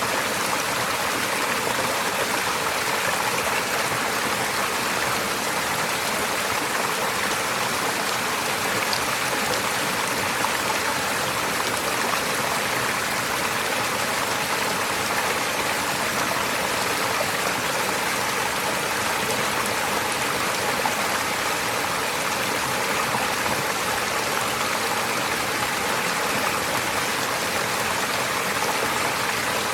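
Stream water running over stones in a steady, even rush that holds the same level throughout.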